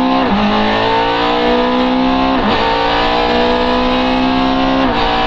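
Competition car's engine at full throttle, heard from inside the cabin, its pitch climbing steadily through the gears with three quick upshifts: about a third of a second in, about halfway through, and near the end.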